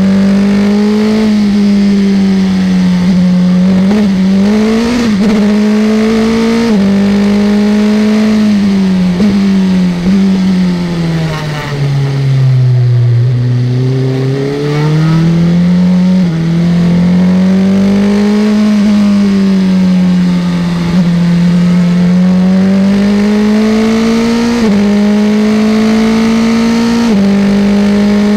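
Onboard sound of a Formula 3 single-seater's engine at racing revs. It climbs through the gears with quick drops in pitch at each upshift, falls to its lowest about halfway through as the car slows for a corner, then pulls back up through the gears at full throttle.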